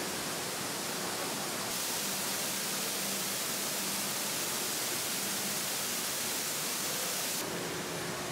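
Steady hiss of water falling from an indoor atrium waterfall into its pool. It grows brighter about two seconds in and drops back near the end.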